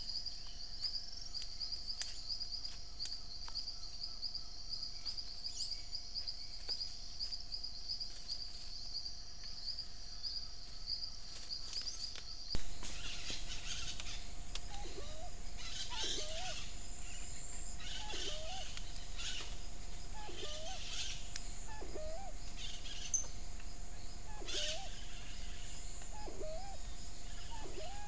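Forest ambience. An insect trills steadily in a fast high pulse until a sudden click about halfway through. After the click, a bird repeats a short rising call about once a second, with higher bird chirps over it.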